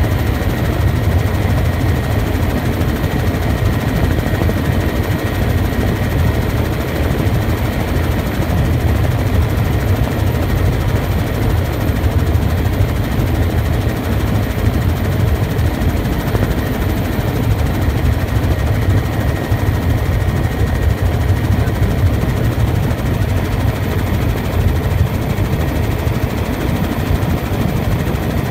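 Tour helicopter in steady cruising flight, heard from inside the cabin: a constant heavy engine and rotor drone, deepest in the low range, with a faint steady high whine.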